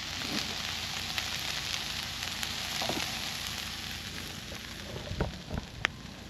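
Food sizzling and frying in a hot pan, a steady hiss, with a few light knocks near the end.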